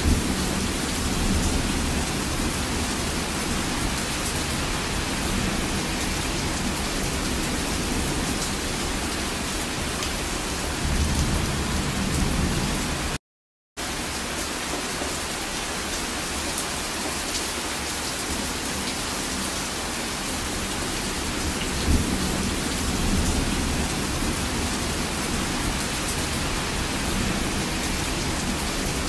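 Rainstorm: steady, dense rainfall hiss, with low rumbles of thunder swelling up a few times. The sound cuts out for about half a second midway.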